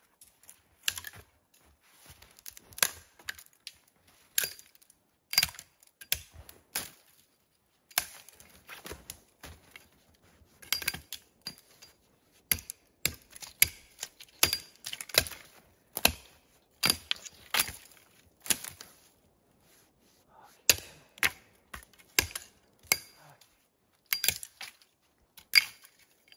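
Axe chopping into a standing dead spruce: a run of sharp, irregular chops, roughly one a second, with a short pause about two-thirds of the way through.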